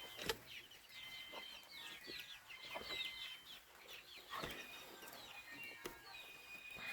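Faint chickens: chicks peeping in many short, high falling notes, with hens clucking among them. A couple of sharp knocks, one just after the start and one in the middle.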